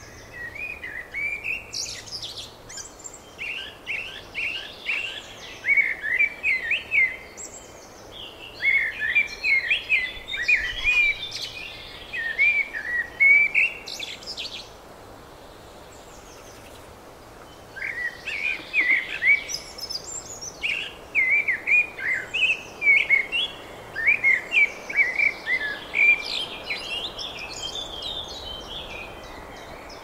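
Songbirds singing: two long bouts of rapid, jumbled warbling notes, with a pause of a few seconds in the middle.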